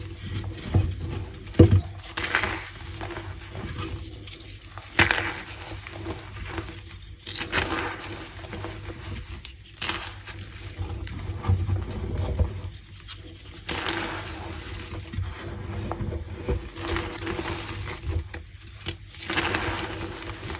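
Reformed gym chalk blocks crushed and squeezed by hand, crumbling and squeaking in irregular bursts, with a sharper crack every few seconds.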